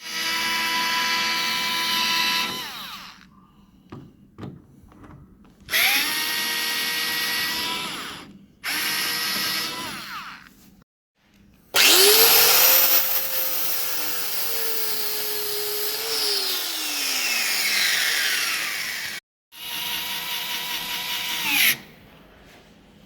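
Power drill running in five bursts of a few seconds each, its motor whine steady within each burst. In the longest burst, starting about twelve seconds in, the pitch falls as the drill slows before it stops.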